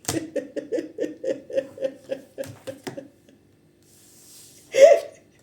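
A woman laughing: a run of short chuckles, about four a second, fading out over some three seconds, then one brief vocal sound near the end.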